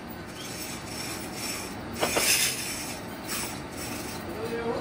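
Factory floor noise: a steady noisy background with a louder burst of noise about two seconds in.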